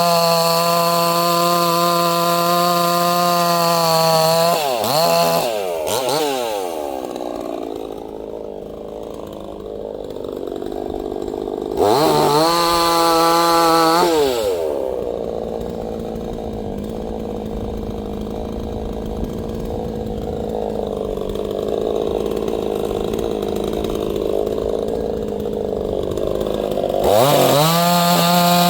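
Neotec NCS6800 68cc two-stroke chainsaw at full throttle. Its pitch drops under load as the chain cuts into wood about five seconds in, rises as it revs free briefly about twelve seconds in, then drops into a second, longer cut before revving free again near the end.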